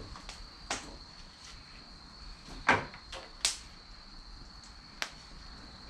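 Chestnut and cherry firewood burning, with about five sharp crackling pops, the loudest about two and a half seconds in.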